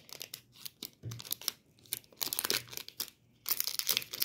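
Foil wrapper of a Pokémon card booster pack being crinkled and torn open by hand, in irregular bursts of rustling and tearing that grow busier near the end.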